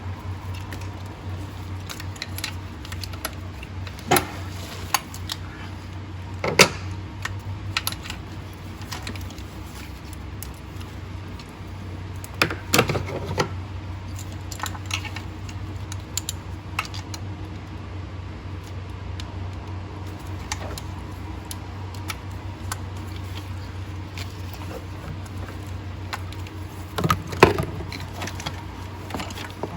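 Sporadic metallic clinks and knocks of hand tools and loose parts, the loudest about 4, 6.5, 13 and 27 seconds in, over a steady low hum.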